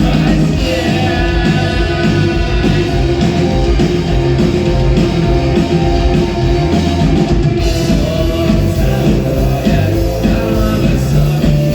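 Rock band playing a song with a singing voice over electric guitars, bass and drums, loud and continuous.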